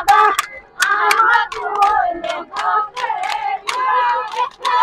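High voices singing a Bihu song, with sharp hand-clap or percussion strikes keeping a rhythm at about two to three a second.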